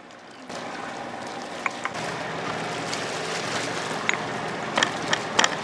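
Steady rushing noise of wind and water along the shore, with several sharp knocks near the end from a stone pestle pounding ginger and garlic in a stone mortar.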